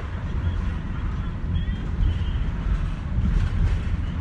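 Road noise inside a moving van's cabin: a steady low rumble of engine and tyres with some wind noise.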